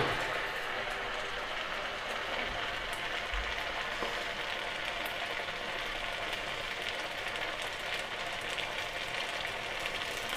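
Neypathiri, a rice-flour flatbread, deep-frying in hot oil on high flame, with a steady sizzle.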